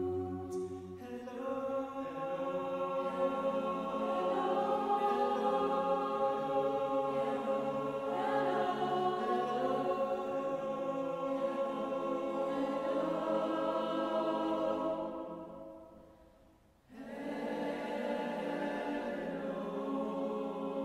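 Mixed-voice a cappella choir singing sustained chords. About fifteen seconds in the voices fade away almost to silence, then come back in together on a full chord a second or so later.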